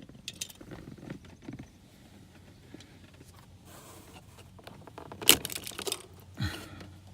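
Brittle, aged plastic tweeter speaker grill on a Mercedes W210 dashboard cracking and crumbling as it is pried out: scattered small clicks and crackles, with the loudest snap about five seconds in.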